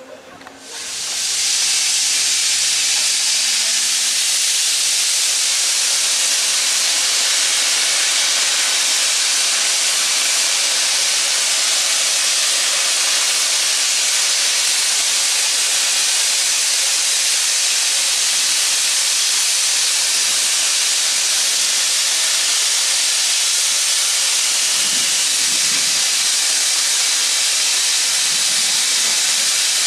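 Steam locomotive venting steam: a loud, steady hiss that starts suddenly about a second in and holds without any exhaust beat.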